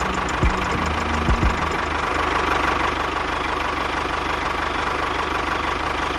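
A small motor running steadily with a low, even pulse and a steady whine, with a few sharp knocks in the first second and a half.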